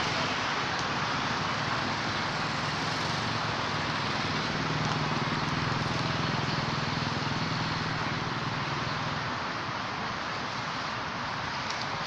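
Steady road traffic noise, with a low vehicle engine hum that swells about four seconds in and fades away near nine seconds.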